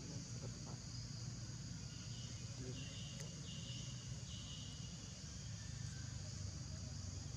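Steady high-pitched insect chorus, with four short buzzing calls between about two and five seconds in, over a low rumble.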